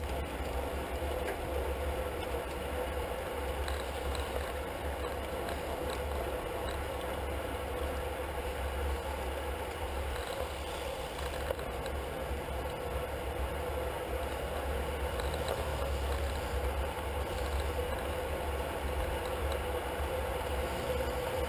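Steady rush of wind and rolling road-bike noise from inside a racing pack, with wind buffeting the microphone of a handlebar-mounted camera and a low hum from tyres and drivetrains.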